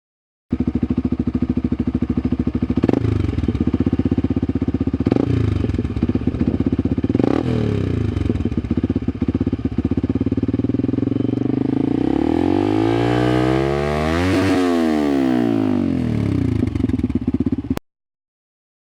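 Yamaha R15's single-cylinder engine idling through a homemade extra-long exhaust built from two old mufflers joined together. Three short throttle blips come a few seconds apart, and later the note rises and falls over a few seconds before the sound cuts off suddenly.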